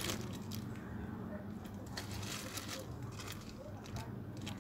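Clear plastic packaging bags crinkling and rustling in short bursts as small accessories are handled and unwrapped, over a steady low hum.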